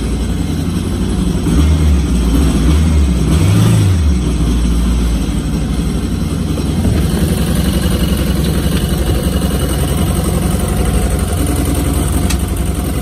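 Kawasaki STX-12F personal watercraft's four-cylinder four-stroke engine running, with low compression in one cylinder. It is blipped three times in the first few seconds, the last blip highest, then settles to a steady idle.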